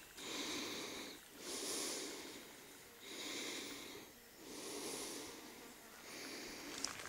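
A person breathing heavily close to the microphone, with long rhythmic breaths about every second and a half.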